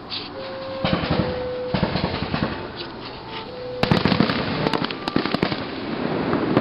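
Aerial fireworks bursting in rapid crackling clusters, with a heavier barrage of bangs and crackles about four seconds in.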